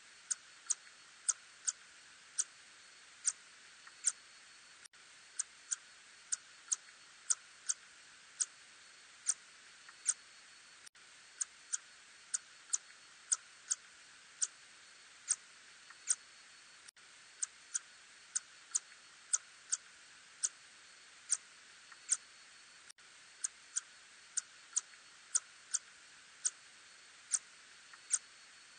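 Ussurian tube-nosed bat (Murina ussuriensis) calls, heard as short sharp clicks at an uneven pace of about one to two a second, some in quick pairs, over a steady faint hiss.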